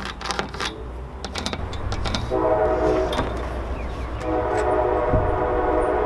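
Train horn sounding twice, a short blast and then a longer one, over a steady low rumble. A few light knocks come before the first blast.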